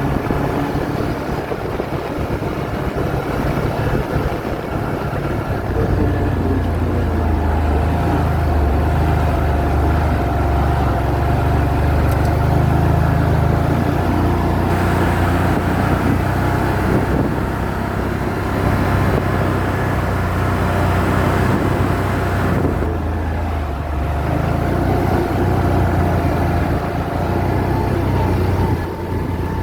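ATV engine running as it is ridden, its low note stepping up and down with the throttle every few seconds.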